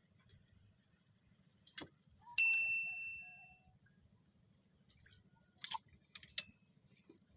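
A single bright metallic ding that rings and fades over about a second, just after a sharp click. A few small clicks or knocks follow near the end.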